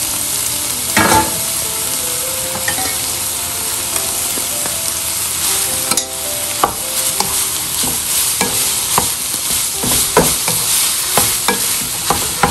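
Raw ground pork sizzling in hot oil in a nonstick pan, stirred with a wooden spatula whose scrapes and knocks against the pan come more often in the second half.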